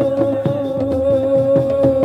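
Music: one long held note over a steady, fast drum beat of about four strokes a second.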